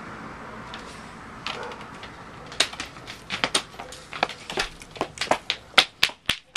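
A quick, irregular run of sharp clicks and knocks, starting about two and a half seconds in, over a faint steady hiss.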